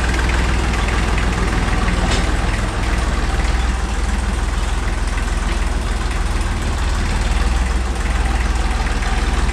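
Small IMT tractor's diesel engine running steadily as the tractor drives off. It is running well after a sticking injector nozzle was fixed.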